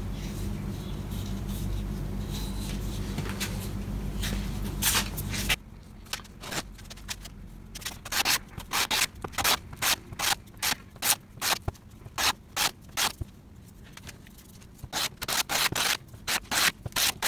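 A wooden knife handle rubbed back and forth by hand on a strip of sandpaper, making short rasping strokes about twice a second in two runs with a pause between. Before that, a steady low hum runs for about five seconds with a few scrapes, then cuts off.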